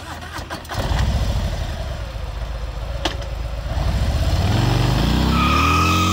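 Cruiser motorcycle engine running with a lumpy, pulsing idle, then revving up and pulling away, its pitch rising over the last two seconds.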